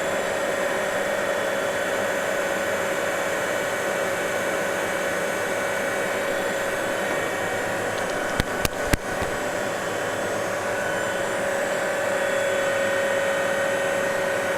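Metal lathe running at a steady speed, its drive giving a steady whine, while it takes a light facing cut on a round bar and makes chips. A few sharp clicks come about eight and a half seconds in.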